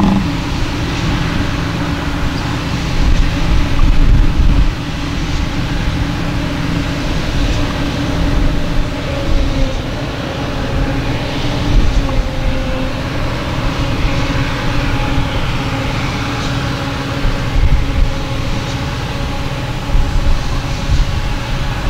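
Diesel farm machinery running steadily under load: a Claas Jaguar 940 self-propelled forage harvester chopping grass, with the tractors hauling for it. The deep rumble swells about three to five seconds in.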